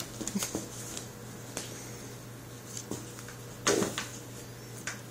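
Kittens playing on a collapsible fabric pop-up tent: scattered soft knocks and rustles as the tent's frame and fabric are batted about and shifted on carpet, with the loudest thump a little before four seconds in.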